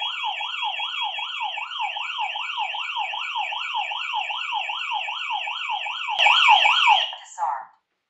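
Hestia control panel's alarm siren: a fast warbling electronic tone rising and falling about four times a second. It gets louder briefly about six seconds in, then cuts off as the alarm is silenced from the panel's touchscreen.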